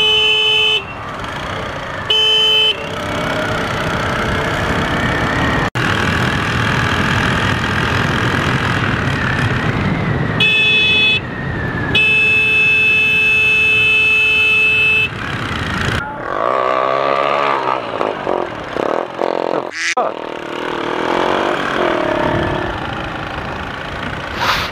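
A vehicle horn sounds four times over the steady noise of a moving motorcycle's engine and wind: short blasts at the start, about two seconds in and about ten seconds in, then a longer blast of about three seconds. In the last several seconds the horn stops and the engine and road noise waver.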